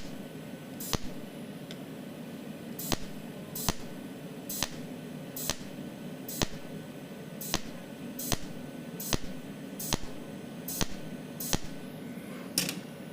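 Cold welding machine spot-welding stainless steel sheet point by point: a sharp snap at each weld spot, about one a second, over a steady low hum.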